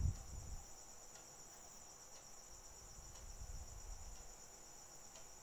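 Crickets trilling steadily at a high pitch, with faint low rumbles underneath.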